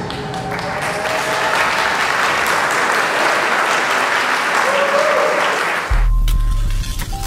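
Audience applauding steadily for about six seconds. It cuts off abruptly into an electronic logo sting with a deep bass note.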